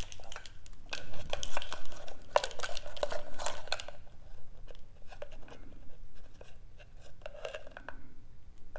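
Handling of a ring of plastic measuring spoons and a small spice jar of smoked paprika: quick clicks, rattles and rustling, densest in the first four seconds, then sparser clicks.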